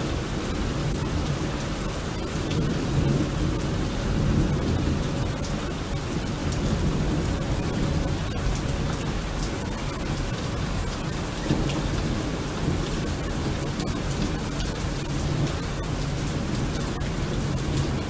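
Steady heavy rain with a continuous low rumble of thunder, a storm sound with no siren wail audible.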